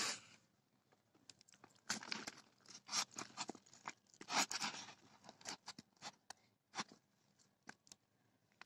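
Hands pressing and working loose, crumbly potting soil around planted horsetail stems: faint, irregular crunching and scraping strokes with short pauses between them.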